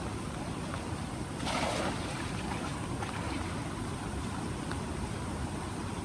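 Steady rushing noise of a large river's flowing water, with a low fluttering rumble of wind on the microphone, and one brief louder hiss about a second and a half in.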